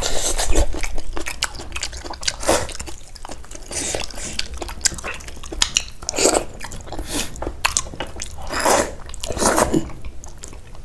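Close-up mouth sounds of someone eating buffalo trotter: chewing and gnawing meat off the bone, with many small wet clicks and several louder sucking sounds, the loudest in the second half.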